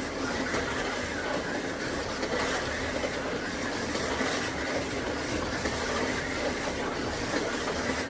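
Slot cars running on an electric slot track: a steady whirring clatter.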